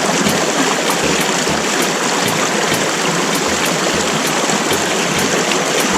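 A mountain creek's water running steadily, an even rushing noise.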